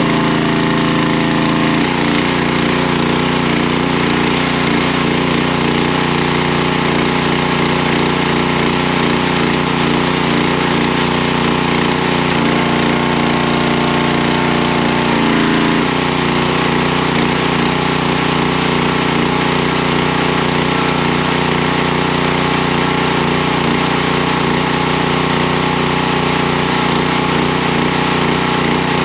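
Small petrol engine of a pressure washer running steadily just after starting, with a brief change in its note about fifteen seconds in.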